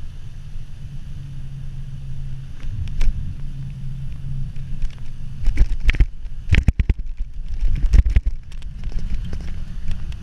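Mountain bike rolling downhill on pavement: a steady low rumble of tyres and wind on the microphone, broken from about five and a half to nine seconds by a cluster of sharp knocks and rattles as the bike jolts over a bump in the path.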